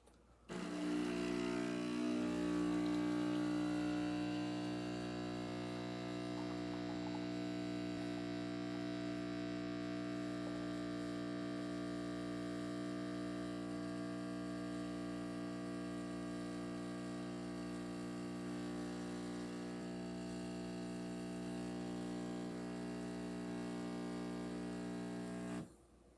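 Neretva 15-bar espresso machine's vibratory pump buzzing steadily as it pulls a double shot. The buzz starts about half a second in, is a little louder for the first few seconds, and cuts off suddenly near the end when the shot is done.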